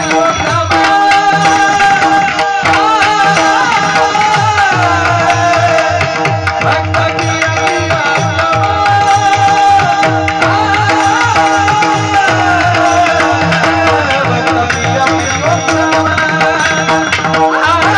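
Devotional kirtan singing: a voice sings a wavering, ornamented melody over a steady held drone and a continuous hand-drum rhythm.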